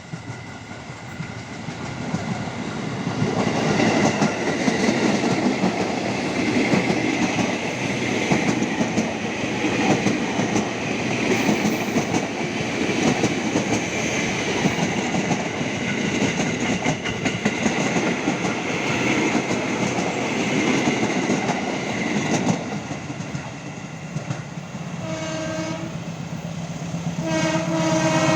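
A train passing at speed, its wheels clattering and rumbling over the rails with a high steady whine, then fading. Near the end the horn sounds two blasts about two seconds apart: the semboyan 35 horn signal.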